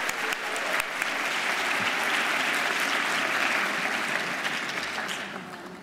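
Audience applause that builds over the first few seconds and dies away near the end.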